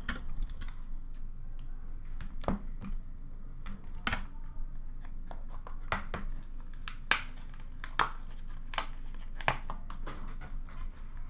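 An Upper Deck Splendor hockey card box being handled and opened by hand: scattered sharp clicks and taps of cardboard and packaging, with light rustling.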